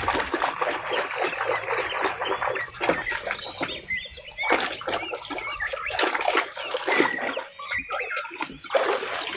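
Muddy water splashing and sloshing as plastic toy guns are pulled from the mud and washed, with birds chirping throughout.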